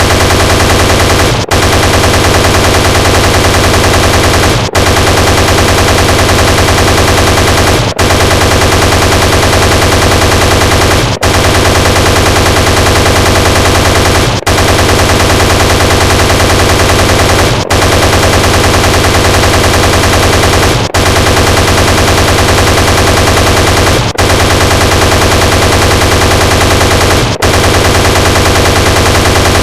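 Sound effect of an Apache helicopter's chain gun firing in long, rapid, continuous bursts. The fire breaks off for an instant about every three seconds and starts again.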